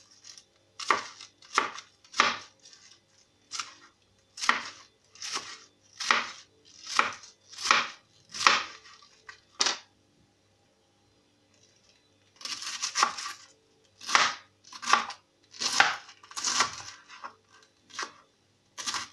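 Kitchen knife slicing rolled lettuce leaves into strips on a plastic cutting board: a crisp crunch with each cut, about one cut a second, with a pause of about two seconds midway.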